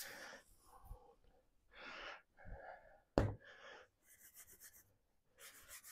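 Faint short hisses and sputters from an aerosol can of Tesa extra-strong spray adhesive, with a sharp click about three seconds in. The glue is not coming out as a fine, even mist.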